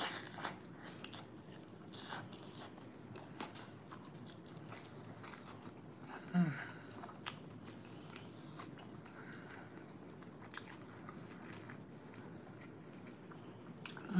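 Chewing a fried crab rangoon: crisp crunching clicks scattered throughout as the wrapper is bitten and chewed, with a brief hum about six seconds in.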